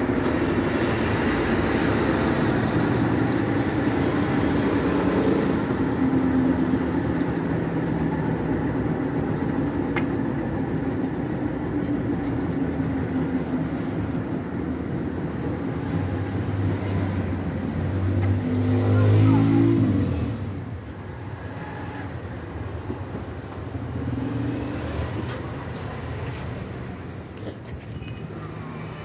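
A machine running steadily with a low hum. It grows louder and shifts in pitch about nineteen seconds in, then settles quieter.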